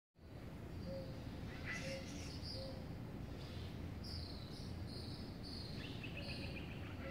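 Birds singing outdoors in tropical gardens: short high chirps and whistled phrases, with a quick trill of repeated notes about six seconds in. A low, steady background rumble runs under them.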